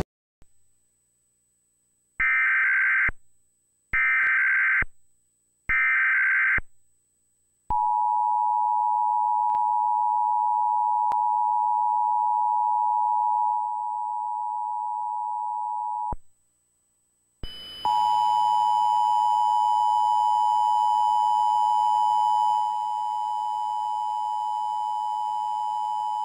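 Emergency Alert System test signal: three short, shrill, warbling SAME digital header bursts, then the two-tone EAS attention signal (853 and 960 Hz sounding together) for about eight seconds. After a brief gap, the attention signal starts again over a background hiss with a faint high whine.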